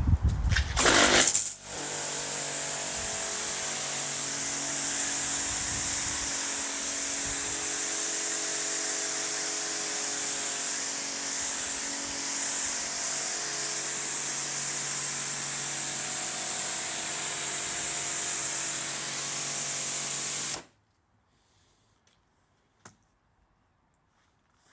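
Halfords PW50 electric pressure washer spraying through a 40-degree fan nozzle: a steady hiss of the water jet over the hum of the pump motor. It starts about a second and a half in and stops suddenly a few seconds before the end.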